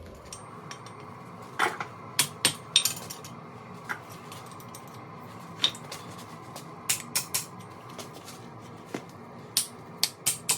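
Hand hammer striking hot steel on an anvil: about a dozen sharp, ringing blows at an uneven pace with pauses between, as a twist is worked out of the forged tool.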